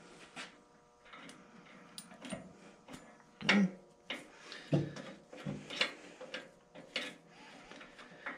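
Irregular clicks and knocks of metal parts being handled as the lower ball-bearing blade guide assembly under a bandsaw table is worked on by hand.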